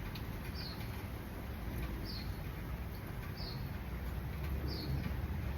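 A small animal's short, high chirp repeating evenly about every second and a half, over a steady low rumble.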